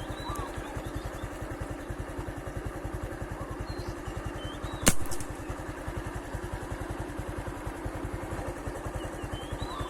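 A small engine running steadily with an even low throb. There is one sharp crack about five seconds in, and a few faint bird chirps.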